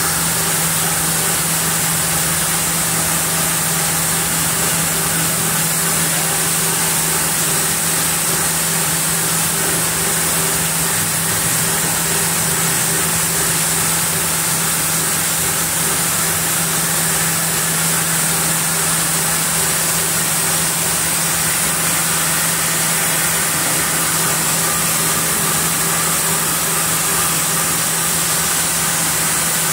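Band sawmill machinery running steadily: a constant low hum with a high hiss, unchanging throughout.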